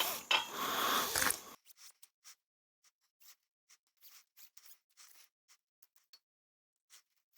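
A ratchet strap being handled: about a second and a half of rustling and scraping, then a run of faint, irregular clicks.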